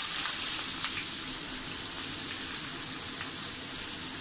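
Freshly added sliced onions sizzling in hot refined oil in a non-stick kadai over a low gas flame: a steady, high hiss that eases slightly after the onions go in.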